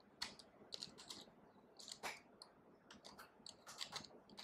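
Faint typing on a computer keyboard: a run of quick, irregularly spaced keystrokes.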